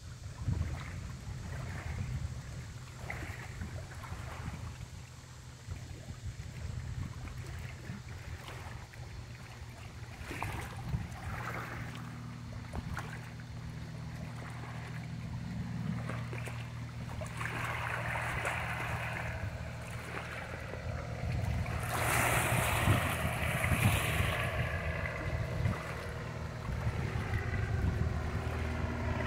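Single-engine floatplane flying past with a steady propeller-engine drone that grows louder as it comes overhead in the last third. Gusts of wind hit the microphone.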